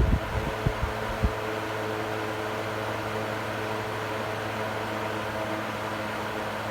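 Electric fan running with a steady motor hum, with a couple of faint knocks in the first second and a half.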